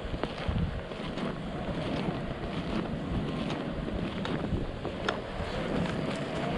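Wind buffeting the microphone, a rough low rumble with scattered light clicks.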